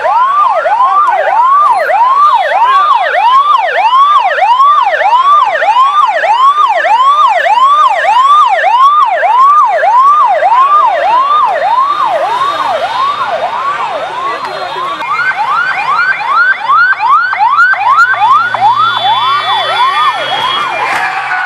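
Ambulance siren sounding loud and continuous, a fast rising-and-falling sweep about twice a second, which moves up in pitch about fifteen seconds in.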